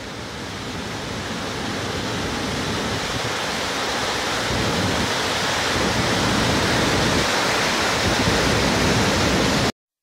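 A waterfall's steady rush of falling water, growing slowly louder, then cut off abruptly near the end.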